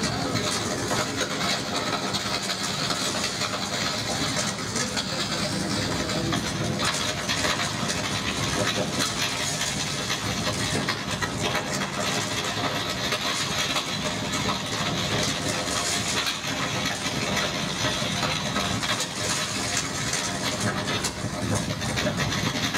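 Live electronic music played from laptops: a dense, even wash of noise with a few faint held tones.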